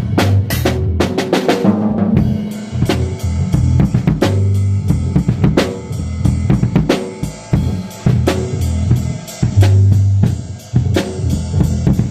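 A drum kit playing a busy beat of bass drum and snare hits, with rimshots and sustained low bass notes beneath.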